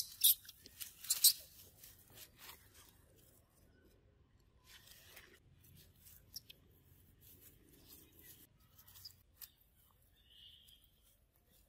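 Dry fallen leaves crackling and rustling under monkeys moving and scuffling on the ground, with a cluster of sharp crackles in the first second or so, then only scattered faint ones.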